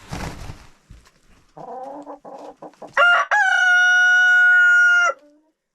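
Rooster crowing once: a long, loud, held crow about three seconds in, lasting about two seconds and cutting off sharply. It is preceded by a few short clucking calls.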